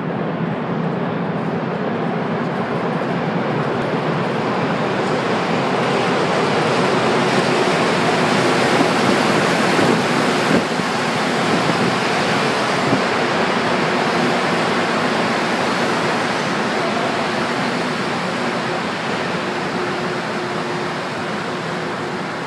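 Rubber-tyred Montreal metro train approaching through the tunnel and pulling into the station: a loud rushing noise that builds to a peak about ten seconds in, then slowly eases as the train slows to a stop, with a faint steady hum underneath.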